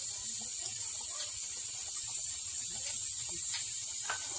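Steady high hiss of semolina, ghee and water cooking in a kadhai, with a few light scrapes of a slotted spatula stirring it near the end.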